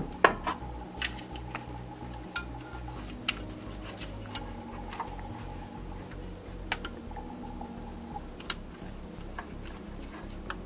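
Irregular clicks and small knocks of hands working an engine wiring harness and its plastic clips, about a dozen spread through, the sharpest just after the start, over a faint steady hum.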